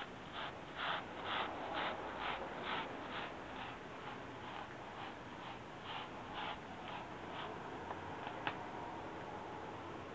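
Scottish Fold cat licking a coarse, bristly litter-trapping mat: a rhythmic scratchy rasp of the tongue on the bristles, about two strokes a second. The licking is louder in the first few seconds and fades, with a single sharp click near the end.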